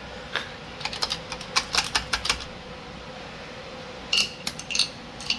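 Irregular sharp metallic clicks and clinks, like hand tools or small metal parts knocking together, in a quick cluster in the first half and a few ringing clinks near the end, over a faint steady hum.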